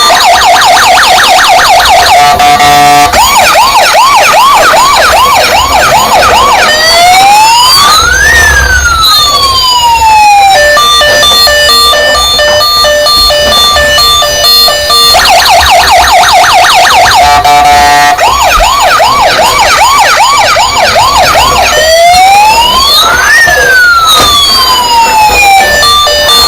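A toy RC emergency vehicle's electronic siren sound effect, loud and cycling through its patterns: fast sweeping yelps, a quick warble, then one slow wail rising and falling, followed by a stretch of steady electronic beeping tones. The whole cycle runs twice.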